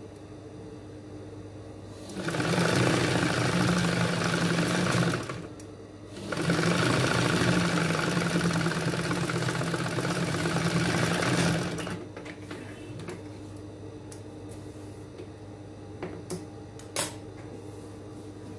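Industrial flatbed sewing machine stitching a seam in two steady runs, about three seconds and then about five and a half seconds, with a brief stop between. A few small clicks near the end.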